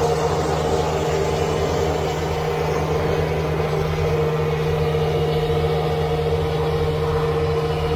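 Kubota BX23S compact tractor's three-cylinder diesel running steadily under load with its front-mounted snowblower engaged, clearing heavy wet snow: a constant engine drone with a steady higher whine above it.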